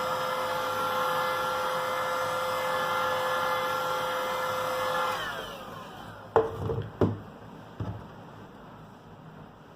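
A small motor-driven blower runs steadily with a fixed whine, then is switched off about five seconds in and winds down with a falling pitch. Three sharp knocks follow, as of a tool being set down or handled on the bench.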